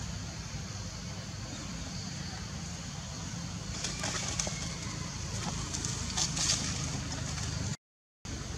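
Steady outdoor background noise, a low rumble with a high hiss, with a cluster of brief scuffs and clicks in the middle. The sound cuts out for a moment near the end.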